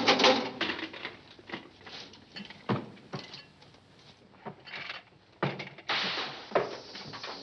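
Scattered knocks, scuffs and clatter, irregular and short, with a louder stretch of noisy rustle from about six seconds in.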